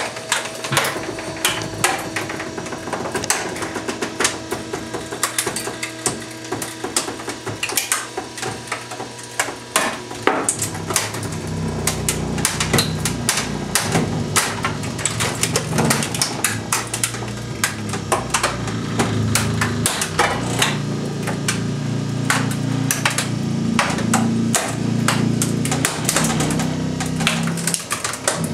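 A car stereo and a microwave being crushed in a compactor: a steady stream of sharp, irregular cracks and snaps of breaking plastic and metal. About a third of the way in, a steady low machine drone starts under the cracking as the compactor works under load.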